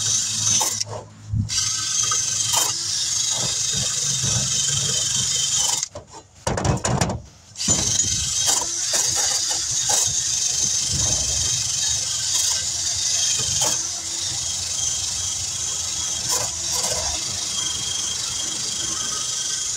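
Power wire brush scrubbing rust off a small 10-inch camper-trailer wheel rim to clean it before the tire is mounted: a steady high-pitched whir that breaks off briefly about a second in and again for about a second around six seconds in.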